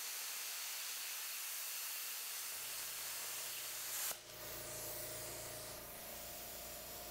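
Harbor Freight Titanium 65-amp plasma cutter cutting through a steel steering shaft, a steady hiss of the plasma arc and air. About four seconds in the arc stops with a sudden change, and the torch's air keeps hissing after the cut.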